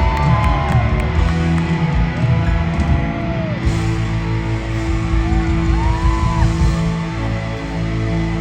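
Live rock band playing an instrumental passage: bass and drums under a lead line of long notes that bend up, hold and fall back.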